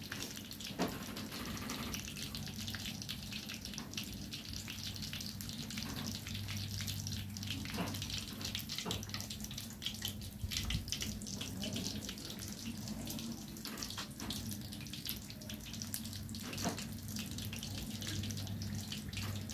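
Chopsticks clicking and clinking against small porcelain bowls and plates while people eat, scattered light taps over a steady low hum and hiss.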